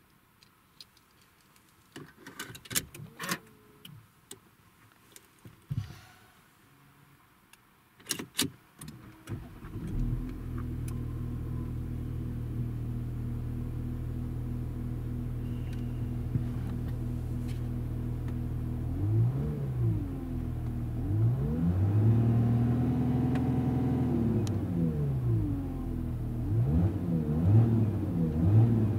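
A few clicks and knocks, then the Volkswagen Touareg's 3.0 TDI V6 diesel starts about nine seconds in and idles steadily, heard from inside the cabin. From about nineteen seconds it is revved: a short blip, a longer rev held for a couple of seconds, then several quick blips, each falling back to idle.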